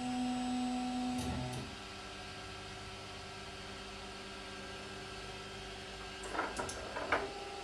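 Stepper motors of a HyperCube CoreXY 3D printer whining steadily as the print head carriage travels, stopping about a second and a half in. A fainter steady hum follows, with a few short clicks near the end.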